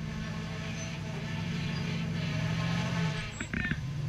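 Rock-crawler buggy's engine working under load as it climbs a near-vertical rock face, growing louder for about three seconds, then easing off briefly just past three seconds in before picking up again.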